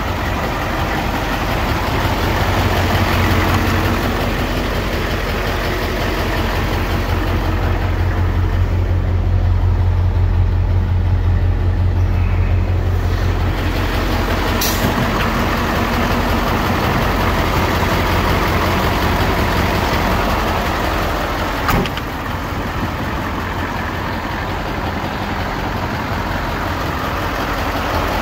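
Mercedes-Benz 2629 K tipper's V8 diesel engine idling steadily, a little louder for several seconds in the middle. A single sharp knock comes about three-quarters of the way through.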